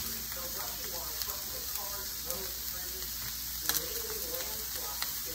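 Vegetables sizzling as they fry in a pan, a steady hiss, with two light clicks, one a little past the middle and one near the end.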